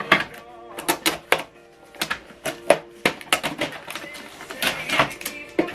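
Background music with irregular knocks, clicks and clatter of plastic parts and packaging being handled as an HP Deskjet Plus 4130 inkjet printer is unpacked.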